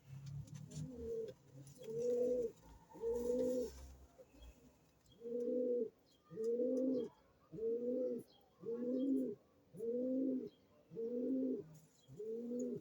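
Domestic pigeon cooing over and over, about one coo a second, with a short break about four seconds in.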